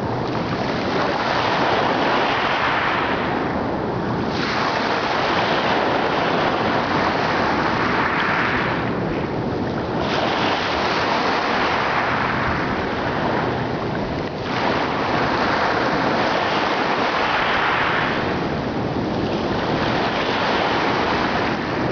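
Ocean waves breaking, a fresh surge starting about every five seconds and washing away, over a steady rush of surf.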